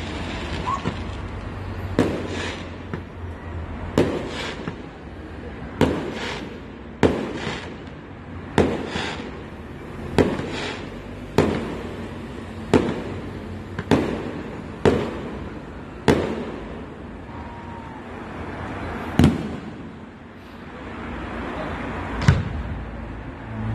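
Aerial firework shells bursting, a sharp bang every one to two seconds, each with a short echoing tail. The bangs space out to about three seconds apart near the end.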